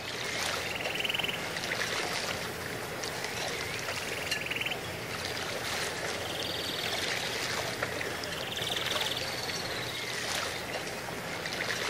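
Outdoor ambience: a steady hiss with a short trilled call, rising then falling, repeating four or five times about every two to three seconds.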